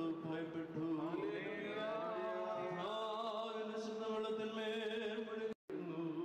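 A priest chanting a liturgical prayer in long, held notes that slide from one pitch to the next. The chant cuts out for a moment near the end.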